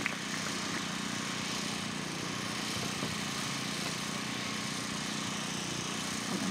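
A steady low hum over a constant even hiss, like a machine running.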